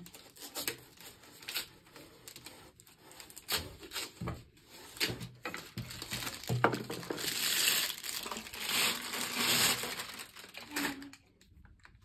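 Packaging crinkling and rustling as a vacuum attachment is unwrapped by hand, with scattered clicks and knocks and two longer rustles in the second half.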